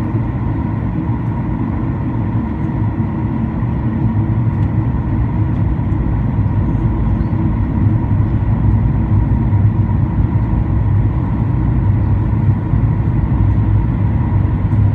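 Steady cabin drone of a Boeing 737-800 in flight on descent: the CFM56 turbofan engines and the airflow over the fuselage, heard from inside the cabin. It is a low rumble with a faint steady hum above it, and it grows slightly louder about halfway through.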